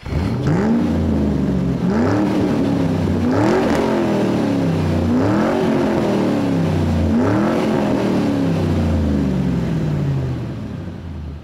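A car engine idling and being revved repeatedly, about five quick blips that each rise sharply and fall back slowly to idle, then fading out near the end.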